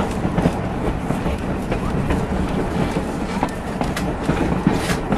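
Vintage passenger coach of a steam excursion train rolling along the track, heard from inside: a steady low rumble of wheels on rails, with scattered clicks and rattles.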